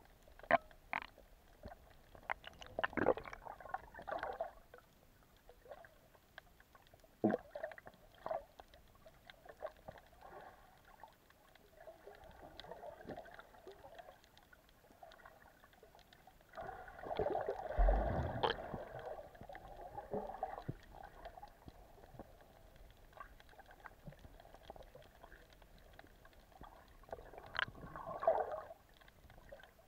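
Muffled water gurgling and sloshing, heard with the microphone underwater, with scattered clicks and several louder swells of rushing water. The loudest swell comes about seventeen to twenty seconds in.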